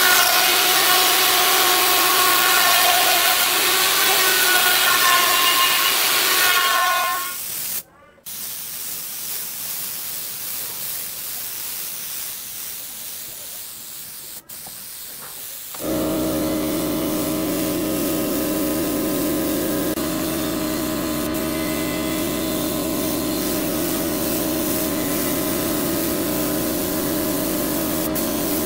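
Dongcheng plunge router running at speed, a steady high whine over hiss, cut off suddenly about seven seconds in. Then a compressed-air spray gun hisses steadily as a clear finish is sprayed. About halfway through, the air compressor starts up and runs with a steady hum under the spray.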